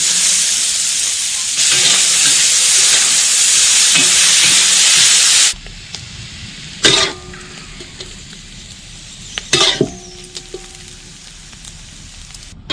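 Chili peppers and wood ear mushrooms sizzling loudly as they stir-fry in a hot oiled pan; the sizzle cuts off abruptly about five and a half seconds in. Then it is quieter, with two ringing metal clanks of cookware, about three seconds apart.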